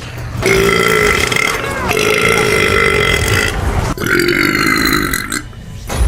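A woman burping: three long belches in a row, each lasting over a second, with short breaks between them.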